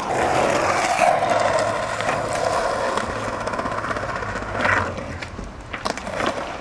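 Skateboard wheels rolling steadily over concrete and paving, a continuous rumble with a few sharp clicks near the end as the board rides onto a concrete bank.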